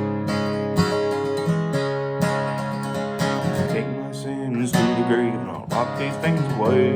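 Acoustic guitar strumming chords in an instrumental break of a country song. In the second half a higher melody line bends up and down in pitch over the strumming.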